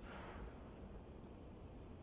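Faint room tone with a steady low rumble, and a brief soft rustle in the first half second.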